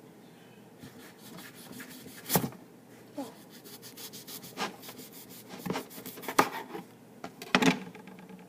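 Kitchen knife cutting through a raw potato on a wooden cutting board: scraping blade strokes with several sharp knocks of the knife on the board, the loudest about two seconds in and near the end.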